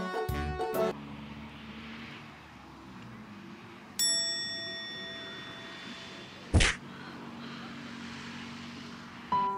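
A bright bell-like ding about four seconds in, ringing for a couple of seconds as it fades, then a single short sharp noise burst, the loudest sound, about two and a half seconds later, both over a faint steady background. Brass-led background music ends about a second in and comes back near the end.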